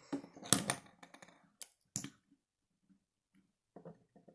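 Plastic Lego pieces clicking and knocking together as the small model is handled, with a loud clatter of clicks about half a second in, two sharp clicks around one and a half and two seconds, and a few soft taps near the end.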